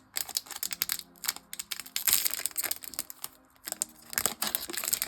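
Plastic trading-card pack wrapper being torn open and crinkled by hand, a run of sharp crackling and rustling that lets up briefly a little past three seconds in.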